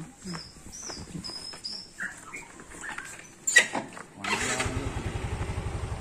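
A motorcycle engine starts about four seconds in and then runs with a fast, even beat. A few short high bird chirps come in the first two seconds.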